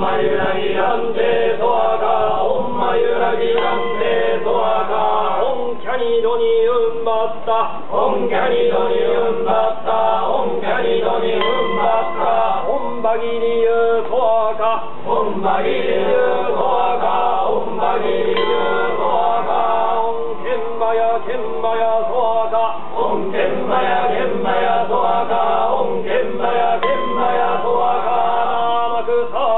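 A group of yamabushi (Shugendo mountain ascetics) chanting Buddhist sutras together in a steady, unbroken recitation of many male voices.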